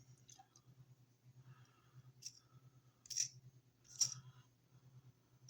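Plastic transforming toy figure being handled, giving a few soft clicks and rubs of plastic, three of them louder between about two and four seconds in, over a faint low hum.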